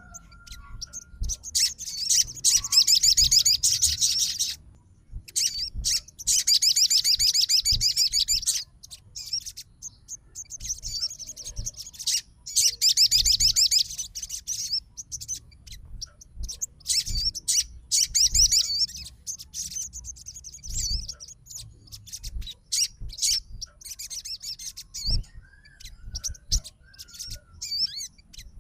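Sogon songbird singing in agitated fighter mode, calling out a rival: long bursts of rapid, high trilling, each lasting a few seconds, broken by pauses and short chirps.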